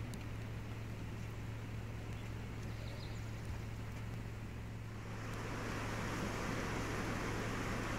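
Steady outdoor ambience with a constant low hum. About five seconds in, a louder, brighter rushing hiss takes over: a rain-swollen creek running full.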